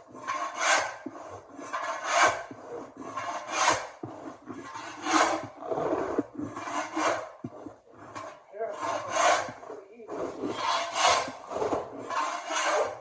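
Shingle removal tool scraping along the floor under carpet in repeated rasping pushes, about eight strokes one every second and a half, prying the carpet up off the floor.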